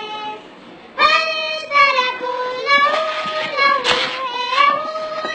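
A child singing a slow melody with long held notes that waver in pitch. The voice drops out briefly about half a second in and comes back strongly at about a second.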